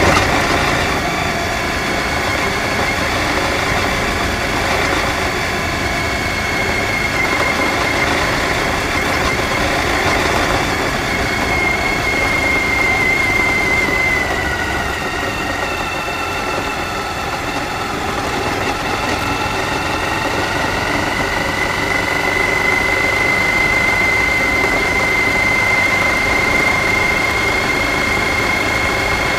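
Suzuki V-Strom DL1000's V-twin engine running steadily under way, with tyre noise from the gravel track and wind. A steady whine in the engine sound drops in pitch about halfway through, as the bike slows, and rises back a few seconds later.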